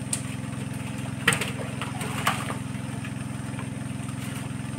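A small engine running steadily at an even idle, with a few sharp knocks over it, the loudest about a second in.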